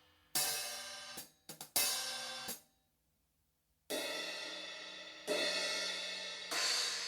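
ARBOREA cymbals struck and left to ring: one crash just after the start, a few quick hits that are cut off short about two and a half seconds in, then after a brief pause three more strikes, each ringing on into the next.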